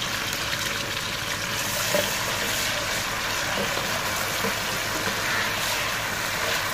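Freshly sliced onions sizzling steadily in hot oil with whole spices in a large aluminium pot, stirred with a wooden spoon. This is the start of frying the onions toward golden brown.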